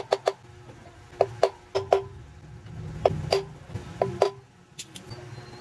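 Hammer striking a steel rod set against the wheel bearing in a Honda TMX 155 motorcycle wheel hub. About a dozen sharp metallic knocks come in uneven groups of two or three, each with a short ring.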